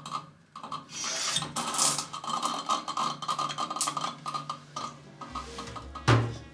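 Water from a shower that should be off, running and splashing in the cabin, with one loud knock about six seconds in. Faint background music plays underneath.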